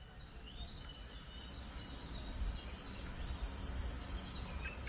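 Outdoor ambience: birds chirping in faint, high, sliding notes over a steady low rumble.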